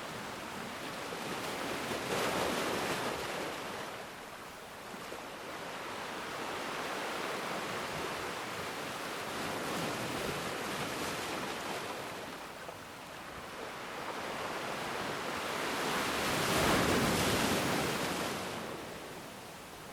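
Ocean waves surging and washing up on a black sand beach, the rush of surf swelling and ebbing in slow cycles, with the biggest wave breaking near the end.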